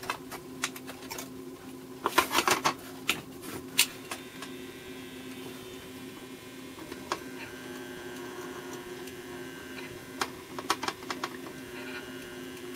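Small clicks and taps of a copper-clad tube-socket board and thin wire being handled against a copper chassis, in clusters about two seconds in, around three to four seconds in and around ten seconds in, over a steady low hum.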